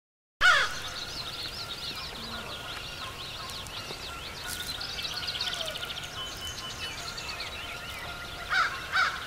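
American crow cawing: one loud caw as the sound cuts in, then two more near the end, over many short high chirps and trills.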